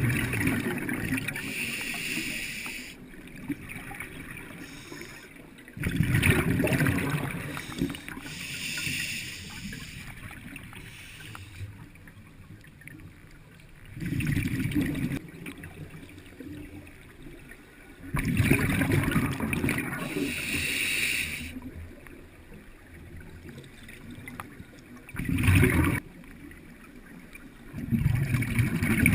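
Scuba diver breathing through a regulator underwater: a hissing inhale, then a loud bubbling rush of exhaled air, repeating every few seconds.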